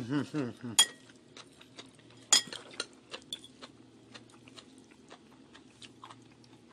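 Light clinks and taps of plates and dishes on a table as food is handled, with a sharper clink about a second in and another about two and a half seconds in, between scattered small ticks.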